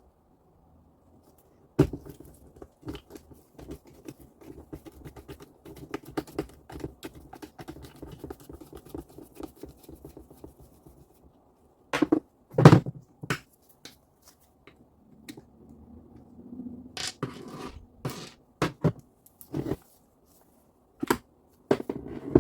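Hands-on workshop handling of saw parts: scratching and scraping with many small clicks, then a few sharp knocks, the loudest about halfway through.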